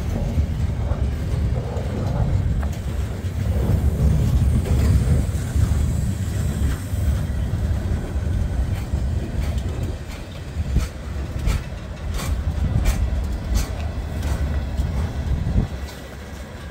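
Freight train cars rolling past at close range: a steady heavy rumble from the wheels on the rails. In the second half comes a run of sharp clicks as wheels pass over rail joints.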